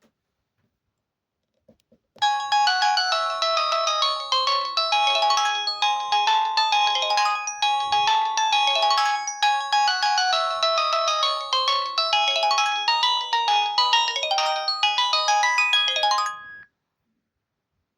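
A Pantech PG-C120 default polyphonic ringtone: a quick, busy melody of short notes, several at once, starting about two seconds in and playing for about fourteen seconds before it stops abruptly.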